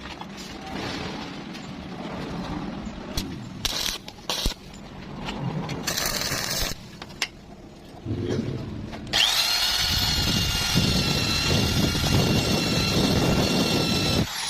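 Workshop noise of scattered knocks and short hissing bursts, then about nine seconds in a power tool spins up and runs with a steady whine.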